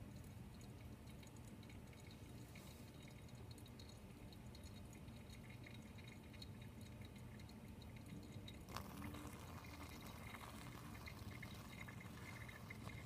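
Faint small ticks over a low hum, then about two-thirds of the way in a gooseneck kettle starts pouring a thin stream of hot water onto blooming coffee grounds in a Chemex paper filter: a soft, steady trickling splash that keeps going.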